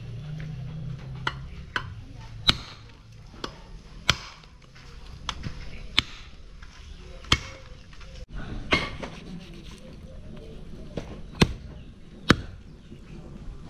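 Heavy knife chopping buffalo meat and leg bones on a wooden stump block: sharp separate strikes at an uneven pace, roughly one a second.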